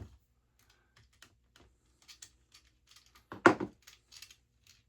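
Light clicks and rustles of small screws, plastic washers and a plastic bag being handled, with one louder knock about three and a half seconds in.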